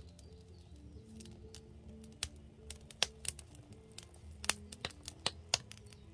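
Wood fire crackling in a firebox, with sharp pops scattered irregularly, several of them loud, over quiet background music.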